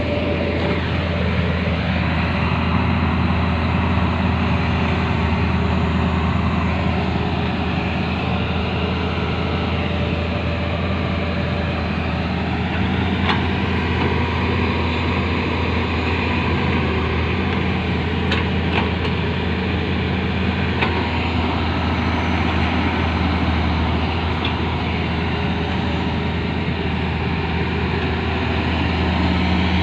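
Kobelco SK130 excavator's diesel engine running steadily under load, with a whine from the hydraulics that drifts up and down in pitch as the machine works, and a few faint knocks.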